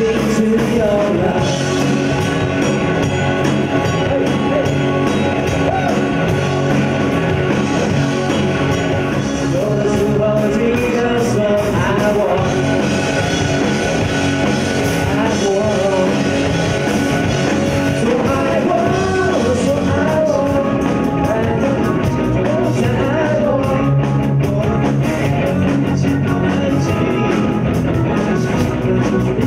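Live pop-rock band with drums and electric guitar playing while several singers sing into microphones, a tambourine shaken along with the beat.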